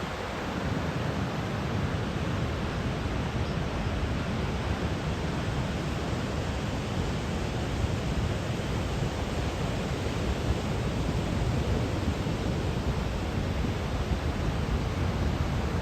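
Steady rush of surf and wind at the shore ahead of a typhoon, with a low rumble of wind buffeting the microphone.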